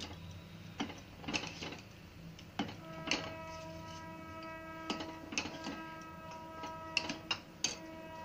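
Steel ladle and steel bowl clinking and tapping against the rim of a stainless steel pressure cooker as kheer is stirred and sugar is added: sharp, irregular metal clicks, about a dozen. A faint steady hum lies underneath.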